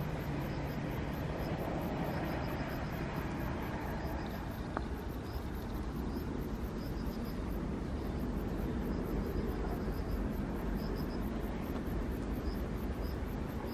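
Steady low rumbling noise with insects chirping over it: a fast, high-pitched pulsing and short chirps repeating every half second or so.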